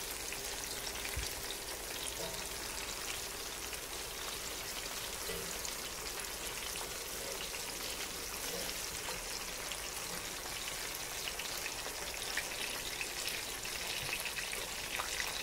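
Breaded catfish nuggets frying in hot oil in a cast-iron skillet: a steady, even sizzle with fine crackling.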